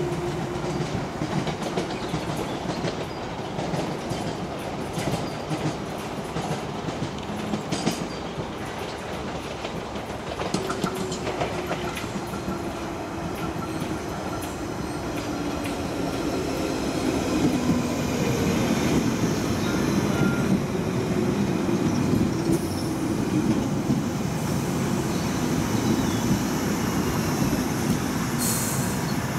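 London Underground Piccadilly line 1973 Tube Stock train running in along the platform. Its motor whine slides down in pitch as it slows, over a rattle of wheels clicking across rail joints. It grows louder as the carriages draw alongside, and some wheel squeal comes in near the end.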